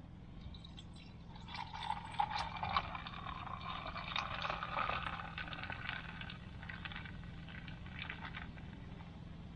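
Dr Pepper poured from a plastic bottle into a metal cup over ice. The pour starts about a second and a half in, runs strongest for a few seconds with a crackly splashing, then thins out toward the end.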